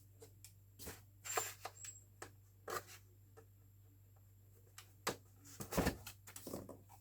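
Scattered clicks, taps and light knocks of a slot car and its hard plastic display case being handled, with a louder clatter about five to six seconds in.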